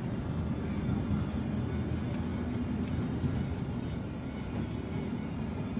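Steady engine and road rumble of a moving coach bus, heard from inside the passenger cabin.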